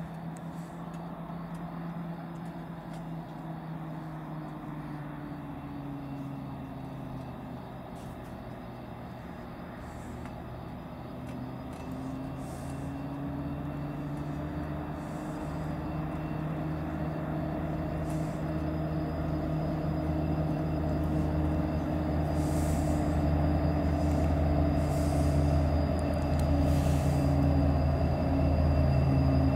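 Renfe Class 334 diesel locomotive hauling a Talgo train, its engine drone growing steadily louder as it approaches, with brief hisses in the second half.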